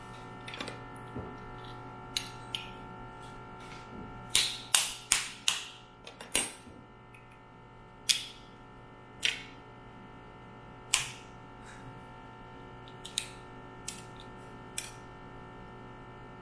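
Steamed mud crab shell being cracked and broken apart in a series of sharp cracks: a quick run of four about four seconds in, then single cracks every second or two.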